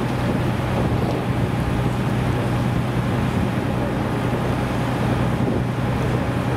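Boat motor running steadily with an even low hum, under wind and water noise.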